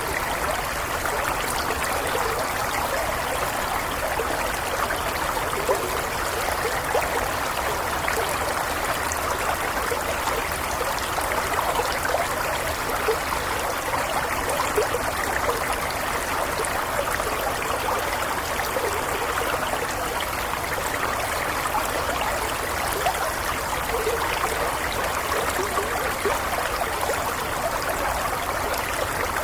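Small stream flowing and trickling steadily, an even babble of running water.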